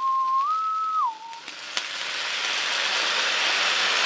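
A short whistle, about a second long: one note that steps up and then drops away. Then stir-fry sauce poured onto the hot griddle around beef and vegetables starts to sizzle, growing steadily louder.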